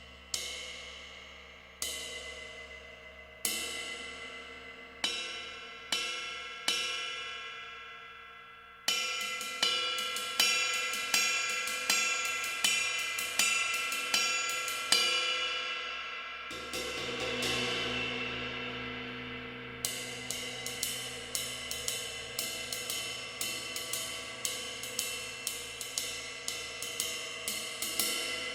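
Pergamon Turkish cymbal struck with a stick, one ringing, slowly decaying hit about every second and a half. About nine seconds in it changes to faster, louder strokes. A sustained cymbal wash swells a few seconds later, and near the middle a quick, steady pattern of about three strokes a second begins.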